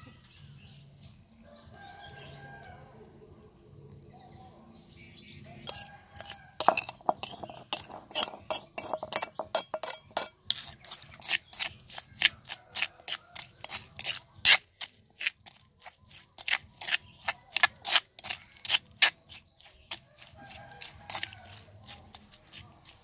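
Sharp, repeated clinks of a small metal knife against a stone mortar, about two or three a second, as sliced garlic is stirred into pounded chilies. They start about six seconds in and stop near the end.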